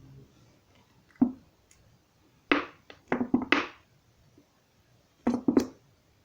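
A few short knocks and taps, as of plastic containers being handled and set down: one about a second in, a quick run of several around the middle, and two more near the end.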